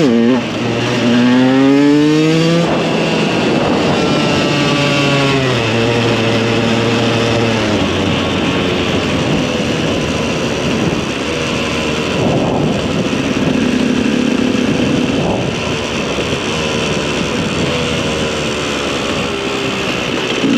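KTM 125 EXC's two-stroke single-cylinder engine pulling hard, its pitch rising twice in the first six seconds with a drop at each gear change, then running on with smaller rises and falls in speed.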